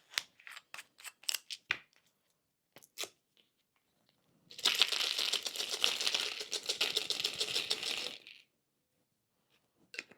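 A few light clicks and taps, then about four seconds of dense, fast rattling of tiny jigsaw puzzle pieces spilling out of a test-tube container, stopping suddenly.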